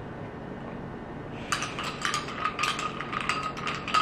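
Ice cubes clinking and rattling against each other in a glass of iced coffee, a quick dense run of small clicks starting about a second and a half in.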